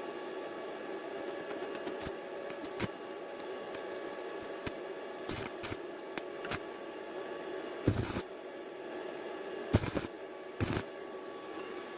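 Tools and small metal parts being handled: scattered light clicks and clinks, with a few short scraping, clattering sounds over a steady hum. The loudest come in the second half.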